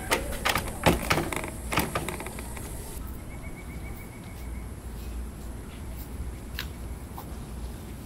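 Round knob of an old wooden door being turned and rattled, the door knocking in its frame several times over the first two seconds. Then only a low outdoor rumble with a couple of faint taps.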